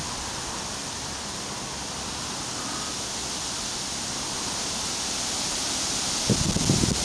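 Steady rushing hiss of the Ebro's flowing water, growing slightly louder, with a few low thumps on the microphone about six seconds in.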